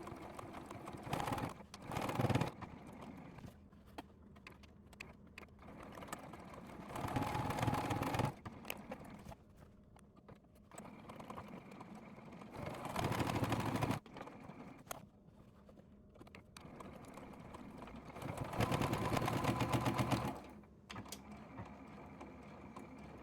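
Electric sewing machine stitching in four short runs of one to two seconds each, with quieter pauses between.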